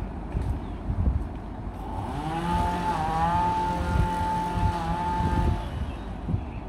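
Engine revving up about two seconds in, holding a steady pitch with two brief dips, then stopping about a second before the end, over a steady low background noise.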